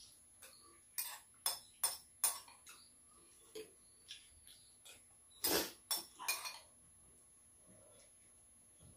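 Metal spoons clinking and scraping in ceramic bowls as two people eat curry and rice: four quick clinks about a second in, then a louder cluster of clinks about five and a half seconds in.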